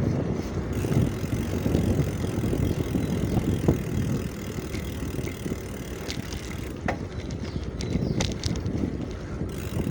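Wind buffeting the microphone during a bicycle ride, a steady low rumble with a few faint clicks.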